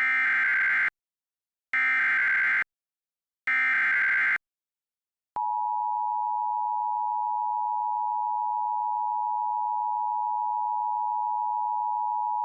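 Emergency Alert System SAME header: three short bursts of buzzy digital data tones, about a second apart. About five seconds in, the steady two-tone EAS attention signal begins and holds.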